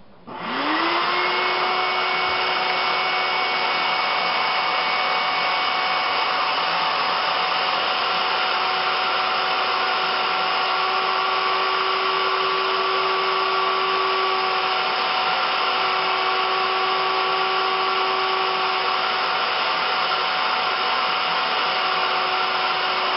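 Shop vac switched on: the motor spins up over the first second, then runs at a steady pitch with a loud rush of air. It is sucking a string through the bicycle frame's top tube.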